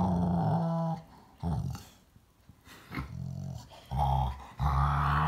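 Rottweiler's affectionate grumble-rumble-purr: a run of low, pitched rumbles, about five, the longest about a second, with short breaks between. This is a contented, loving sound, not aggression.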